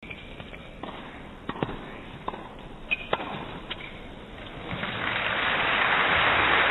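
Intro of a song: scattered sharp pops and taps over a faint background, then a hiss that swells steadily over the last two seconds as the music builds in.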